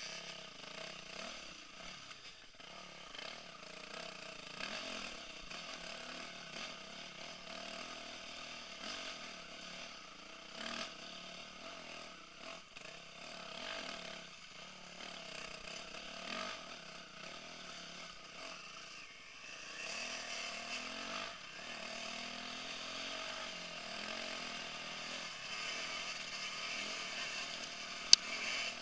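2008 Kawasaki KX250 motocross bike's engine running as it rides a rough dirt trail, revs rising and falling, with one sharp knock near the end.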